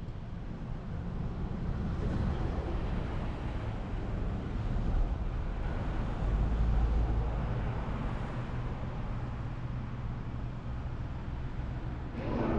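Low rumble of a motor vehicle, swelling over the first couple of seconds and easing off toward the end.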